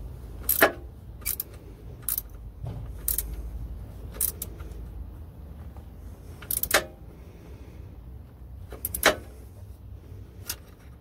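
Sharp, scattered metallic clinks of a wrench working a plug on a Mercedes Sprinter 313's manual gearbox casing, about eight of them at uneven intervals, over a low steady rumble.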